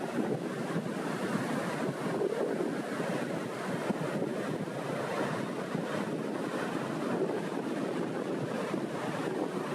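Small sea waves rolling in and washing onto the shore, with wind: a steady rushing wash without pause.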